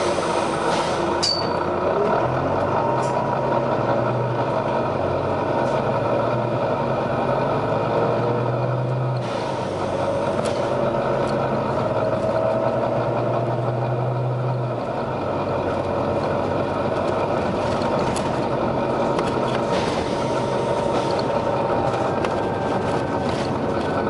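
Volvo B9TL double-decker bus's six-cylinder diesel engine and driveline running while the bus drives, heard from inside the passenger saloon. The whine rises in pitch as the bus gathers speed, partway through and again near the end.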